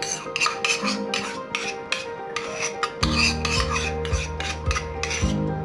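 A steel spoon scraping ghee out of a ceramic cup in a quick run of repeated scrapes. Background music plays underneath, and a bass beat comes in about three seconds in.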